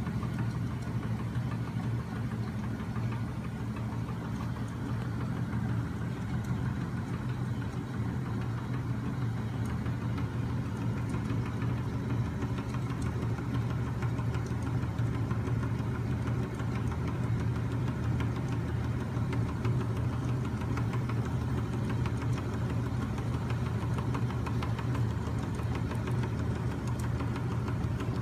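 Home-built magnet-engine machine running steadily, its crank linkages, pulleys and belt turning with a continuous low hum and a fast, even mechanical rattle.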